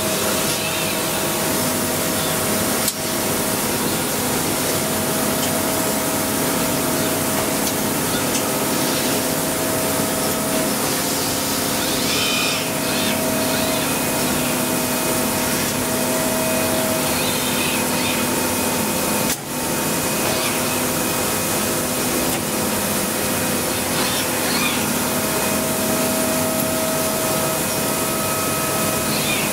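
Steady machine hiss and hum of a robot-tended CNC milling cell, with thin whining tones from the Yaskawa robot arm's drives that start and stop as the arm moves.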